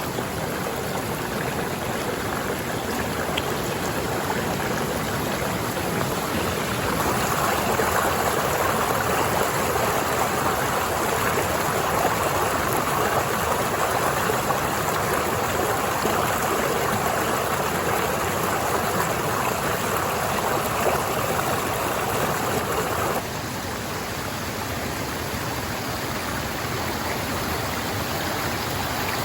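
A stream or small waterfall rushing steadily. About a quarter of the way in, a louder, fuller layer of rushing water comes in, and it cuts off abruptly about three-quarters of the way through.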